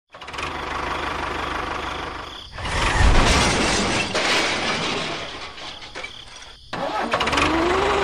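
Tractor engine running with an even low firing pulse, heard in spliced segments that change abruptly about two and a half seconds in and again near the end. The loudest stretch comes at about three seconds.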